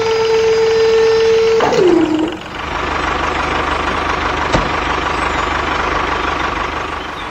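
Vehicle-like machine sounds. A steady, horn-like pitched tone slides down in pitch and stops about two seconds in. Then a steady engine-like running hum follows, with a single click about halfway through.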